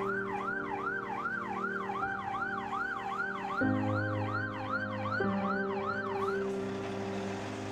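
Emergency vehicle's siren in a fast yelp, its pitch sweeping up and down about two and a half times a second, cutting off about six and a half seconds in. Background music with held notes plays underneath.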